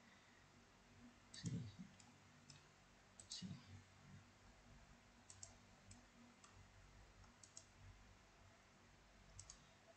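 Computer mouse buttons clicking faintly, a single click or a quick pair every second or so, as faces are picked one after another. Under the clicks is a faint steady hum.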